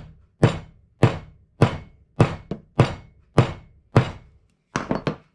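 A steel hammer striking the wooden end of a hickory handle set in a claw hammer's eye, about nine sharp blows at a little under two a second, then three quicker, lighter taps near the end. The blows are driving a wooden wedge into the handle, which is so tight in the eye that the wedge will not go in.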